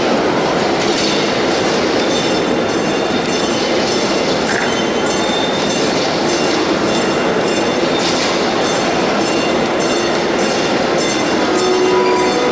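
Train running on rails, its wheels clicking over the rail joints in a steady rhythm, with a steady held tone setting in near the end.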